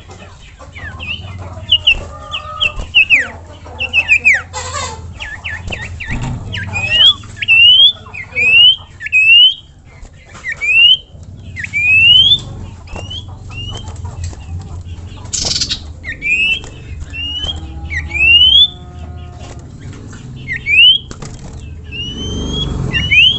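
Common iora (sirtu or cipoh) singing: a run of short, sharp whistled notes that each rise quickly in pitch, repeated about once or twice a second.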